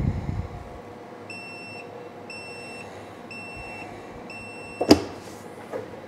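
Clamshell heat press timer beeping four times, about once a second, signalling that the 15-second press is up. Shortly after, a sharp clack as the press is unlocked and its upper platen swings open, after a low thud right at the start.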